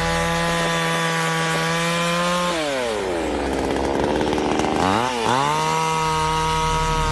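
A 58cc two-stroke gasoline chainsaw running at high revs. About two and a half seconds in, its pitch sinks and stays low for a couple of seconds, then climbs quickly back to full revs.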